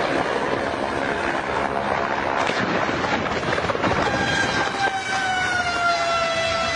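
Helicopter noise, a loud dense rushing. About four seconds in, a steady high tone comes in over it and slides slightly lower.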